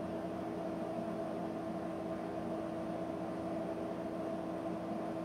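Steady mechanical hum with a couple of held tones over a constant hiss: the room tone of a running appliance.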